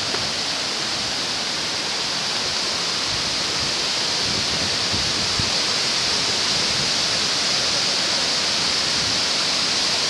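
Steady rushing roar of Kuang Si Falls' cascading water, growing slightly louder partway through.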